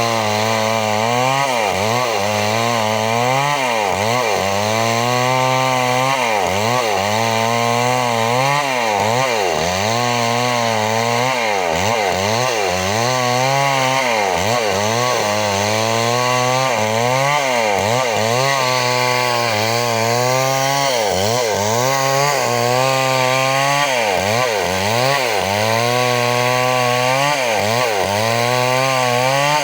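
Chainsaw running without a break while cutting wood, its engine pitch dipping and recovering over and over as the chain bites.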